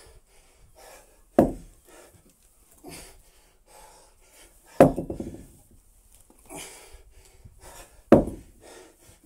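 Three heavy thuds of workout weights hitting the paving, a little over three seconds apart, with hard panting between them.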